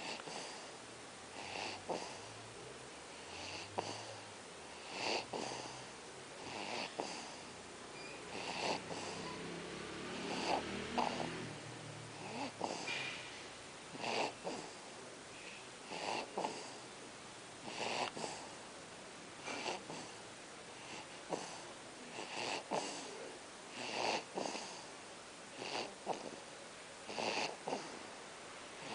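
A one-month-old baby snoring in his sleep: a short noisy snore on each breath, repeating about every second and a half.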